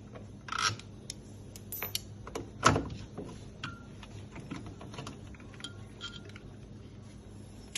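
Scattered clicks and light clatter of hands working on a washing machine's drain motor and its fittings, with louder knocks about half a second and two and a half seconds in.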